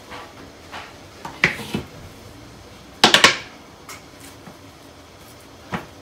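Kitchen handling noise as steamed sticky rice is packed by hand into a bag: a few short rustling and knocking sounds, the loudest about three seconds in.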